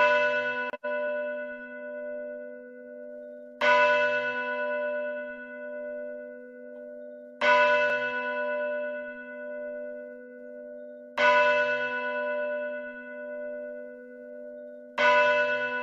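A church bell tolling, struck five times about every four seconds, each stroke ringing on and slowly fading before the next.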